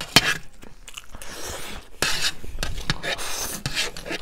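Close-miked eating of spicy buffalo chowmein: chewing noodles, with short sharp clicks of a spoon or fork against the plate.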